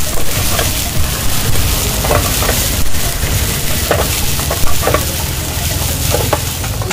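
Chicken frying and sizzling in a hot metal wok (kadhai) while a long steel ladle stirs it, the ladle scraping and knocking against the pan about once a second, over a steady low rumble.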